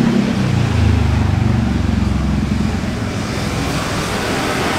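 Low engine rumble that swells at the start and fades after about three seconds, over steady outdoor background noise.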